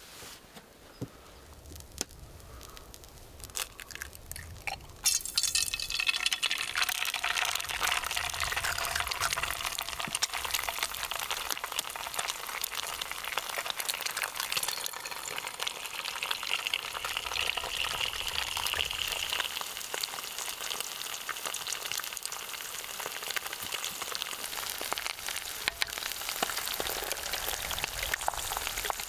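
Eggs frying in hot oil in a frying pan: a sudden burst of crackling sizzle about five seconds in as the first egg goes in, then a steady sizzle. A few faint clicks come before it.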